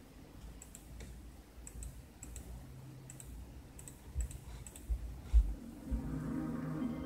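A run of short, sharp clicks from operating a laptop, with a few dull thumps in the second half, the loudest about five seconds in. Near the end the video ident's ambient music starts through the laptop speakers, a sustained chord.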